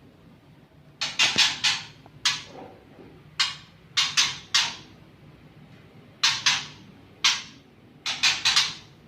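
Caged songbird giving short harsh 'cik-cik' chattering calls in quick clusters of one to four, about seven clusters spread irregularly.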